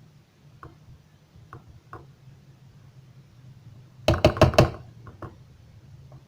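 A quick run of four or five loud knocks about four seconds in, with a few light taps before and after.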